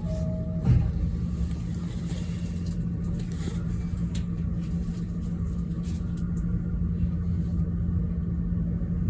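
The running rumble of a JR E217 series electric train heard inside its upper-deck Green car while under way, a steady low drone with a few faint clicks. A thin steady tone stops just under a second in.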